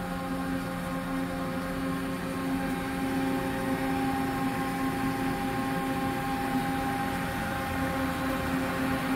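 Makino A55 horizontal machining center standing powered up but idle: a steady hum of its running pumps and cooling fans, with several steady tones over a low rumble.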